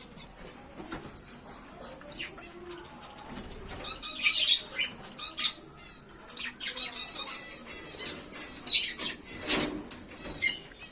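Small cage birds fluttering their wings in an aviary, with two louder bursts of flapping about four and nine seconds in, scattered light clicks, and high twittering in the second half.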